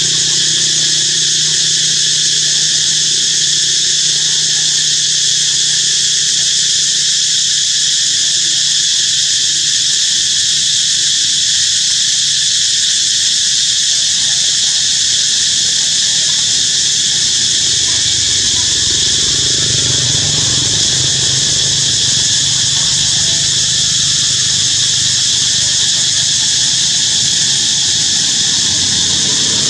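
Loud, steady, high-pitched insect chorus droning without a break. A low hum comes in underneath about two-thirds of the way through.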